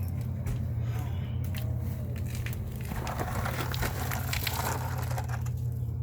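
Scraping, crinkling handling noises, many short clicks and rustles, as the container of drained engine oil is pulled out from under the car. A steady low hum runs underneath.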